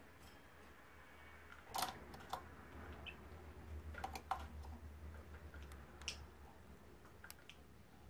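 Scattered light clicks and taps from a peach-faced lovebird moving about its wire cage, about six in all, the loudest about two seconds in, with a faint steady low hum.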